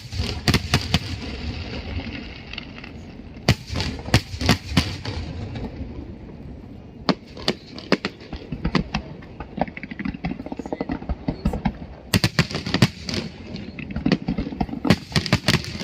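Fireworks display: aerial shells bursting with sharp bangs and crackles in several quick clusters, over a steady background of crowd noise.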